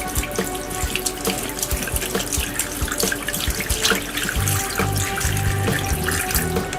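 Water pouring and splashing steadily from a small pump-fed homemade waterfall, under background music whose bass line comes in about four and a half seconds in.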